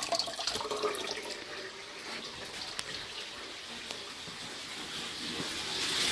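Water running steadily from a hot-water faucet, growing louder near the end.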